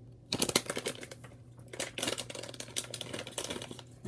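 Foil blind-bag packaging being torn open and handled, crinkling in dense, irregular crackles that start about a third of a second in.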